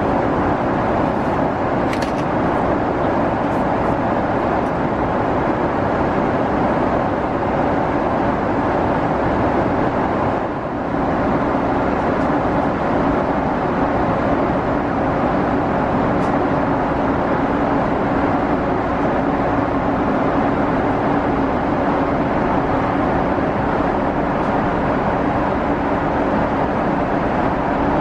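Steady cabin noise of a Boeing 777-300ER in cruise flight, the even rush of airflow and engines with a low steady hum under it. It dips briefly about ten seconds in.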